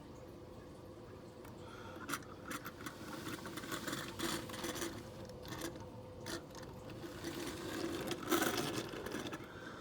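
Plastic toy playset pieces being handled, with irregular scraping, rubbing and small clicks starting about two seconds in.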